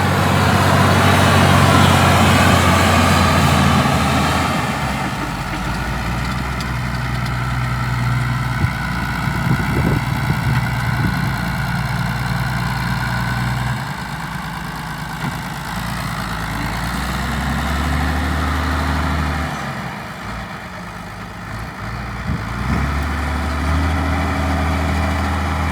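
ZTS 16245 tractor's diesel engine running, its engine speed shifting up and down several times.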